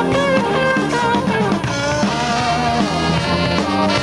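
Live Tejano band playing an instrumental passage: electric guitar lines over a drum kit.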